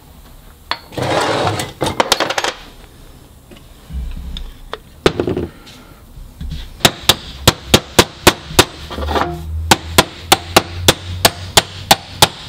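Ball-peen hammer tapping a steel bearing race into a differential side housing: quick light taps, about four a second, starting about seven seconds in. Before them, clinks and scrapes of the metal race being handled.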